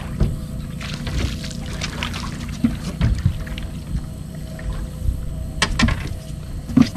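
Background music over water splashing as a hooked bass thrashes at the surface and is lifted into the boat. There are a few sharp knocks near the end.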